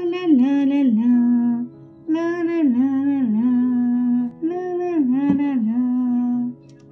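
Background music: a short hummed melodic phrase played three times, each about two seconds long, dipping and settling on a held note, over soft steady backing tones.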